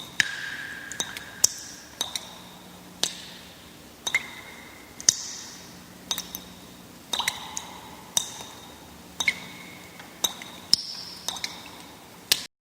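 Water drops plinking irregularly, one or two a second, each a sharp tick with a short ringing tone, stopping abruptly near the end.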